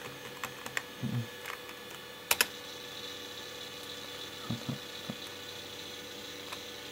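Computer keyboard keys clicking a few separate times, the loudest a quick double click about two and a half seconds in, over the steady hum and faint high whine of the running PC.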